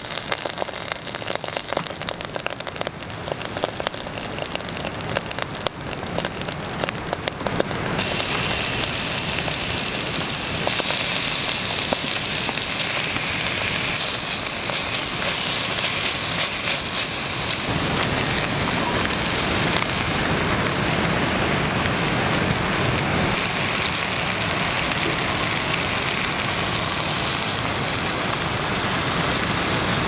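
Hot oil sizzling in a cast-iron camp pot over a wood fire as garlic and then sliced meat fry: a dense, steady crackling hiss. It changes suddenly about eight and again about eighteen seconds in.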